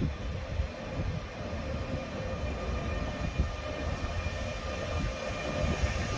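ÖBB class 1016 Taurus electric locomotive arriving slowly with a passenger train: a steady electric whine over the low rumble of wheels on the rails, with one short knock about halfway through.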